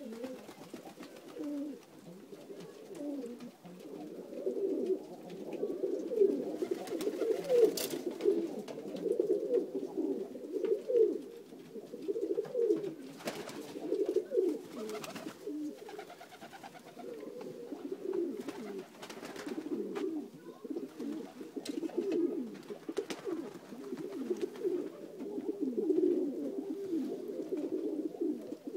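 A flock of Macedonian Dunek domestic pigeons cooing, many calls overlapping without a break, with a few short sharp knocks in between.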